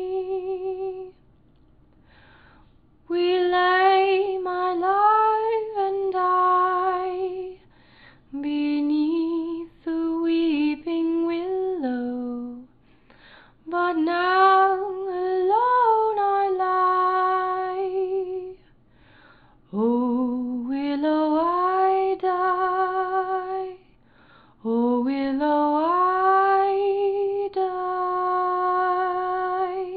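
A woman's solo voice singing a slow, wordless melody, unaccompanied, in five long phrases with vibrato and short pauses between them.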